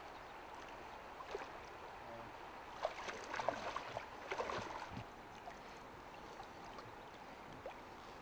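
Shallow river running steadily, with a couple of seconds of splashing and sloshing near the middle as a wading angler steps through the water and handles a landing net.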